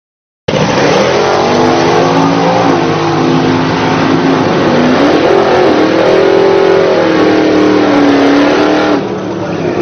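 Drag-racing car engine running loud, its pitch rising and falling as it revs. It cuts in suddenly about half a second in and drops in level near the end.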